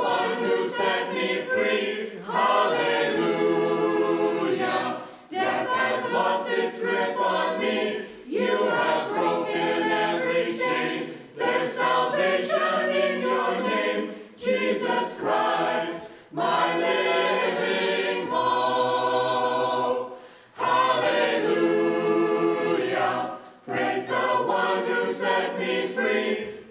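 Mixed choir of men's and women's voices singing a worship song, in phrases with brief breaks between them.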